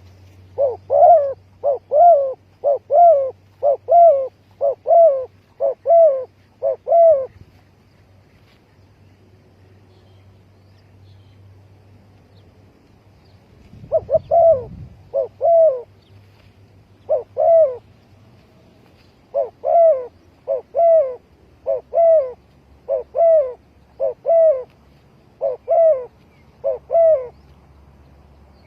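Spotted dove cooing: a run of evenly repeated coos lasting about seven seconds, then, after a pause, a second, longer run.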